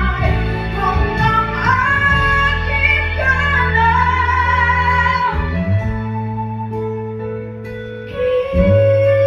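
A woman singing a ballad into a microphone over an instrumental backing track. Her melody moves through the first five seconds or so; then the accompaniment thins out and swells again near the end.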